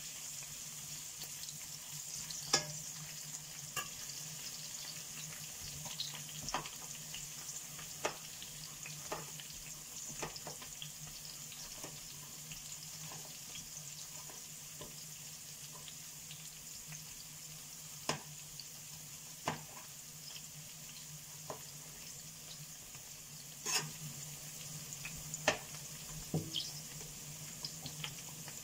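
Sliced zucchini and bell pepper sizzling steadily in oil in a frying pan, with scattered sharp knocks of a knife slicing zucchini down onto a plastic cutting board.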